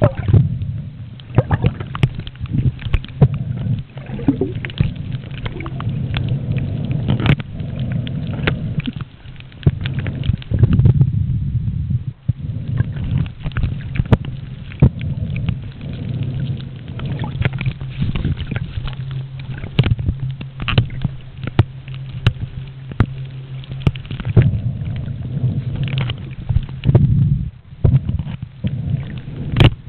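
Muffled underwater noise picked up by a camera moving over a coral reef: water sloshing and gurgling against the housing over a steady low hum, with frequent clicks and crackles throughout.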